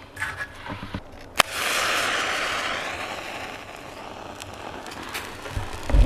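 A match struck once, a sharp scratch about a second and a half in, followed by the hiss of the head flaring that fades over about two seconds. Light knocks of corn cobs being set in the metal fire pit come just before.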